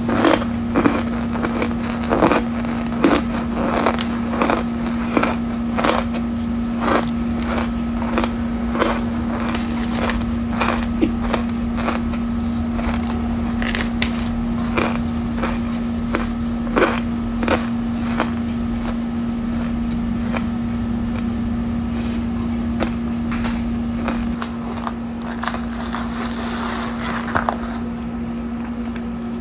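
Scented cornstarch powder crunching and squeaking in short, crisp crackles as it is eaten, several to a couple of seconds apart and thinning out toward the end, over a steady low hum.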